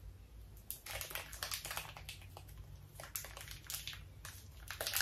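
Packaging crinkling and crackling in irregular bursts as it is handled, starting about a second in, over a low steady hum.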